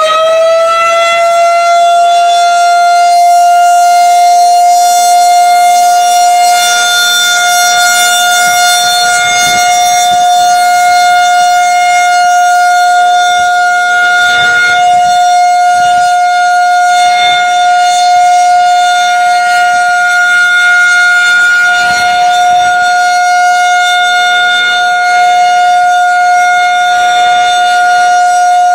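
Federal Signal 2001 rotating electromechanical warning siren sounding a steady Alert tone. It finishes winding up in the first second, then holds one loud, even pitch while the horn turns.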